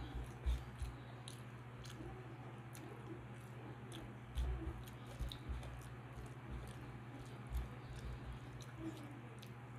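Eating with the hand: fingers squishing and mixing rice on a metal plate, with chewing and scattered small wet clicks, and a few louder low thumps, the strongest about half a second in and around four and a half seconds in. A steady low hum runs underneath.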